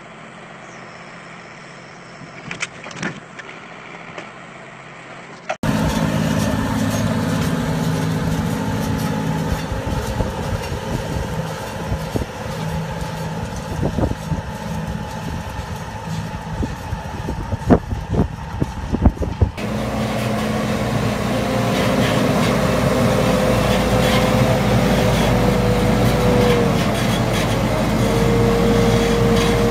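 Heavy diesel machinery running in three cut-together stretches: a quieter, muffled stretch with a few knocks, then about five seconds in a much louder tractor engine with several sharp knocks, then a wheel loader's engine with a steady high whine.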